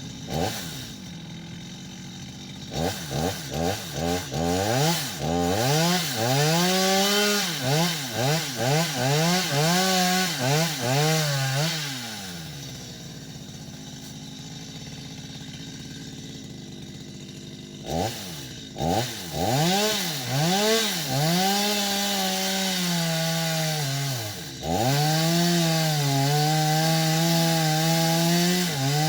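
Petrol chainsaw revved in quick throttle blips, then held at high throttle with its pitch wavering. About halfway it drops back to idle for several seconds, then revs up again and runs steadily at high throttle near the end.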